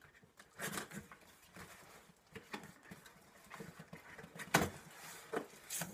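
Cardboard carton and its packaging being handled as the box is opened and rummaged through: irregular rustles, scrapes and knocks, the sharpest about four and a half seconds in.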